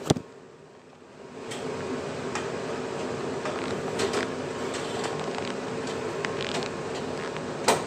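Goodman gas-fired furnace running with its burners lit and blower on: a steady hum with a faint tone. A sharp click comes at the very start, the hum drops away for about a second, and light clicks and knocks are scattered through it.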